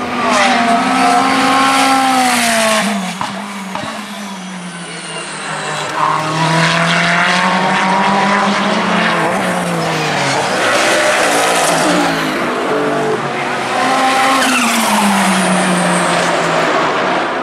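Ferrari 488 GT3's twin-turbo V8 racing past at full noise, its engine pitch dropping as it brakes and downshifts, then climbing again under acceleration, several times over.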